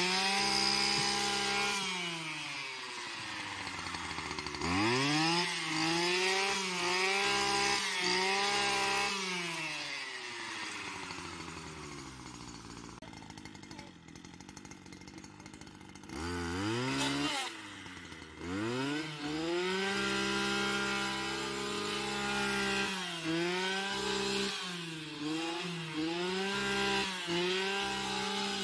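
Stihl two-stroke brush cutter cutting tall grass, its engine revving up and dropping back again and again as the throttle is worked. It settles to a quieter idle for a few seconds around the middle, then runs at high revs again with short dips.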